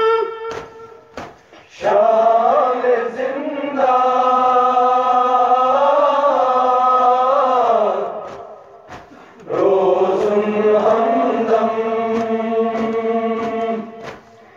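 Wordless chorus of voices holding long, slowly wavering notes as an interlude in a Kashmiri noha lament. It comes in two long phrases with a short break about eight seconds in.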